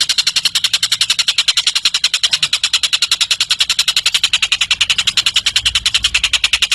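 Tengek cililin bird singing a long, continuous rapid trill of high, evenly spaced notes, more than ten a second.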